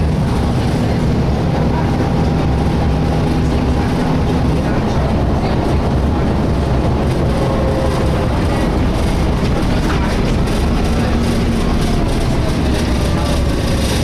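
Volvo B7LA articulated bus running, heard from inside the passenger cabin: steady engine and road noise, with faint screeching tones drifting in pitch, clearest in the second half.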